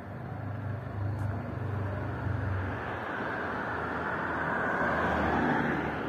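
Street traffic: a motor vehicle's engine hums low and steady, then the noise of a passing vehicle swells and peaks near the end.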